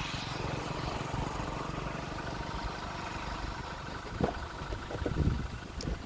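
Engine and road noise of a moving vehicle, heard from on board: a steady hum, with a couple of low thumps about four and five seconds in.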